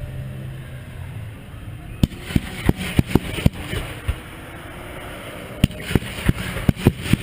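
Aerial fireworks bursting: a rapid volley of sharp bangs with crackling begins about two seconds in, pauses briefly, then a second volley of bangs follows near the end.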